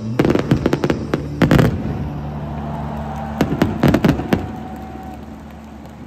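Fireworks going off in quick volleys of sharp bangs and crackles, in three bursts, the last about four seconds in, then fading away.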